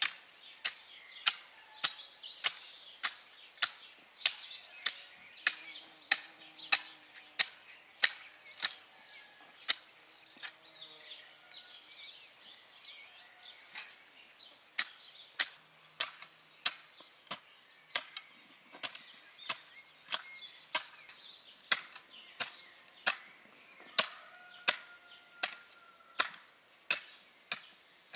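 Garden hoe chopping into tilled soil, a sharp strike about every 0.6 s, with a lull of a few seconds near the middle before the strokes resume. Birds sing in the background.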